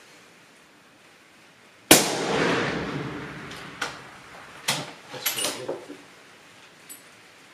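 A single shot from a suppressed .270 Winchester Remington 783 rifle about two seconds in, its report trailing off over about a second. A few sharp metallic clicks follow over the next few seconds as the bolt is worked.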